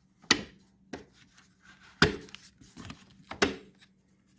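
Tabs on the airbox cover of a Honda Rancher 420 ATV being popped open one after another: a handful of sharp, separate snaps spread over a few seconds.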